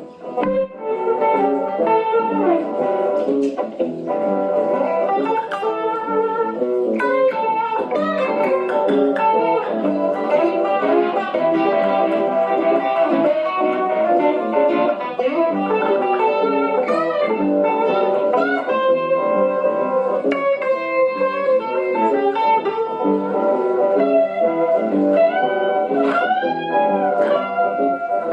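Ibanez RG 750 electric guitar through a Behringer 69 Vibe univibe-style pedal and a Vox AC4TV amp, played as an acid-blues jam with bent notes. The bends are clearest near the end.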